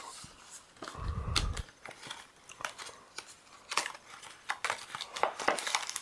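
Packaging being handled and opened by hand: a run of short clicks and crinkles, with a dull bump about a second in.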